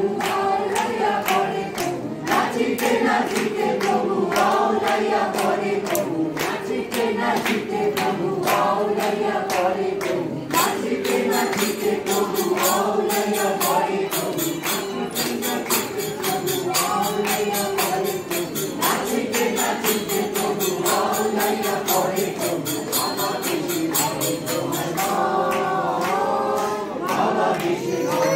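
A crowd singing a devotional chant together, over a steady beat of sharp percussive strikes.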